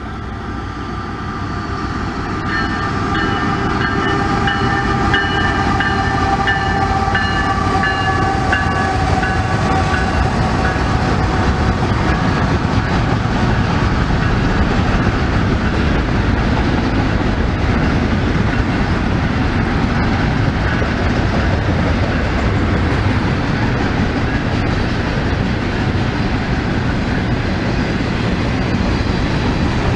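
Double-stack container freight train approaching and rolling past: a locomotive horn chord sounds from about two seconds in and fades out by about eleven seconds. Under it, a steady rumble and clatter of the wheels and cars, growing louder over the first few seconds as the train draws near.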